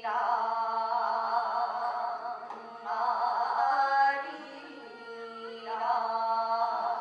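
Korean folk-style singing in three long, wavering phrases over a steady held drone.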